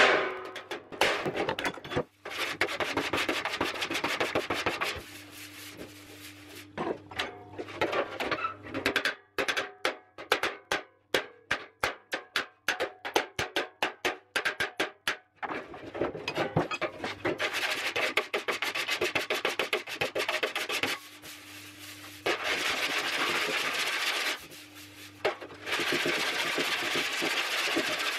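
Metal finishing on a welded steel panel. A toothed bumping file is slapped down on the steel over a dolly in a quick run of taps, about four a second, to raise low spots. Between the runs of taps come long rasping strokes of a file across the steel, scoring the surface to show where the low spots are.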